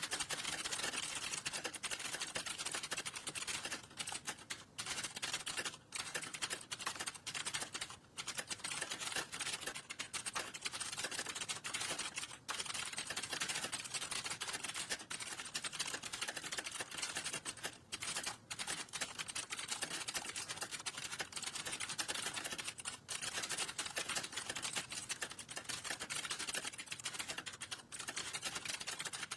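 Fast typing on a computer keyboard: a dense, continuous clatter of keystrokes, broken by a few brief pauses.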